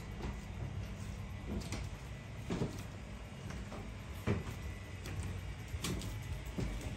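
Footsteps on wooden decking, a soft knock every half second to a second, the loudest a little past the middle, over a steady low hum.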